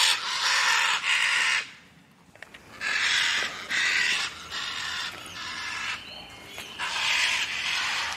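Scarlet macaws screaming: a run of harsh, raspy squawks about half a second each, a pause of about a second, then more squawks, some fainter.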